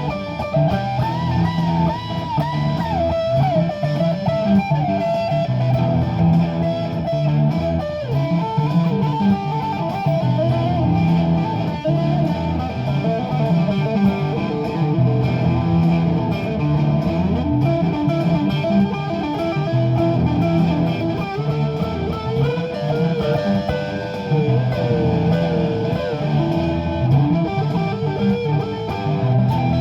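Improvised live-looped guitar music: a repeating low bass-line loop under an electric guitar lead line that bends and wavers in pitch.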